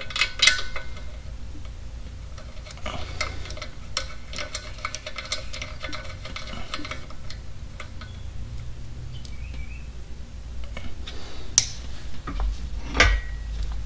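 Hand ratchet clicking as the clutch pressure plate bolts are run in, with small metallic clinks of a socket and extension being handled and a few sharper knocks near the end.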